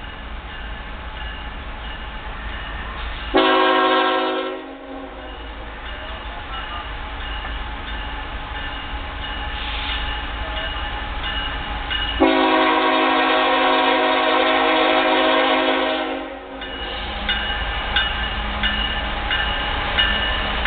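CSX freight locomotive's air horn sounding two chord blasts as the train nears a grade crossing: a short one about three seconds in and a long one of about four seconds later. Under the blasts, a crossing bell rings steadily over the low rumble of the approaching train.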